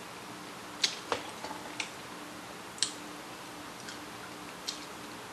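A handful of short, sharp clicks and cracks, irregularly spaced, from eating crab legs close to the microphone: wet mouth clicks of chewing and the shell being snapped apart by hand. A faint steady low hum lies under them.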